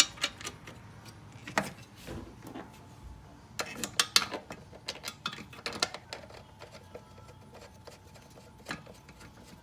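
Irregular sharp metal clicks and clinks from hand tools and steel seat-bracket parts being handled and fitted, in scattered clusters with the busiest run about four seconds in.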